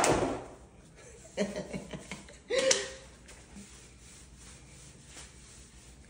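A thump right at the start, then a woman's brief chuckling about one and a half and two and a half seconds in, followed by quiet room tone.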